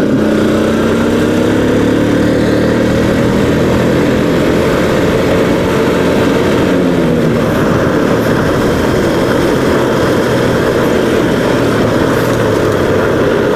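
Motorcycle engine running steadily while riding along, with road noise.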